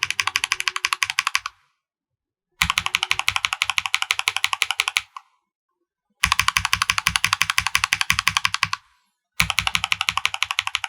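Fast typing on a mechanical keyboard fitted with Lumia and Glorious Holy Panda tactile switches in a brass-plated KBD75 V2 with cherry profile keycaps. The rapid, even keystrokes come in runs of about two and a half seconds with short pauses between: a run ends near the start, two full runs follow, and a fourth begins near the end.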